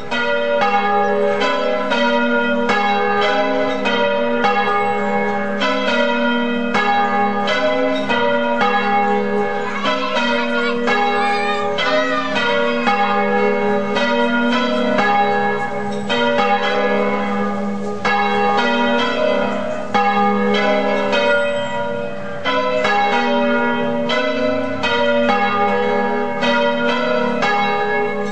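Church bells ringing a continuous peal: several bells of different pitches struck one after another, about three strokes a second, their tones overlapping as they ring on.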